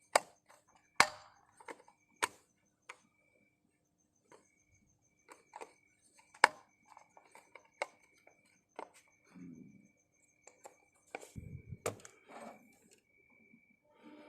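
Scattered sharp clicks and knocks at irregular intervals, as of tools and parts being handled during car servicing, with a heavier dull knock about eleven seconds in.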